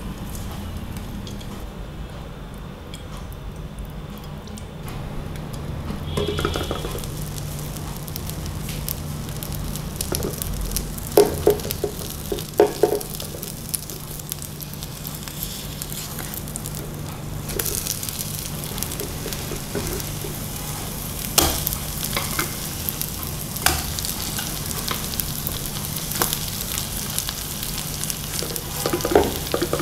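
Egg mixture in bell pepper rings sizzling as it fries in oil in a nonstick pan, with a steady low hum beneath. A silicone spatula knocks and scrapes against the pan a few times as the rings are worked and turned.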